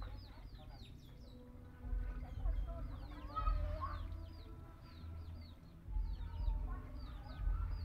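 Chickens clucking in the background, over a steady run of short, high, falling chirps repeating throughout, with a low rumbling that comes and goes in bursts.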